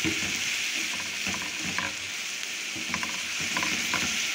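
Julienned carrots, almonds and raisins sizzling in oil in a frying pan, stirred with a slotted spatula that scrapes and turns them in irregular strokes.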